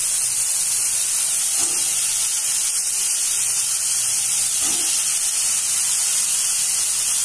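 Sliced onions frying in hot oil in a wok, a steady high sizzle as the onions and sugar caramelize, with a couple of faint knocks as green capsicum pieces go in.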